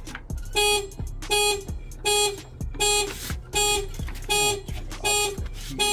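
A Ford Mustang Mach-E's car alarm going off, sounding the horn in a steady rhythm of loud honks, about one every three-quarters of a second. It sounds while the car is raised on the jack and can only be stopped with the Ford app or the key fob.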